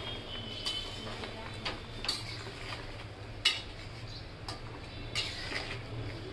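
Metal spatula knocking and scraping against a metal karahi while stirring a wet curry: about six separate clinks, the loudest about three and a half seconds in.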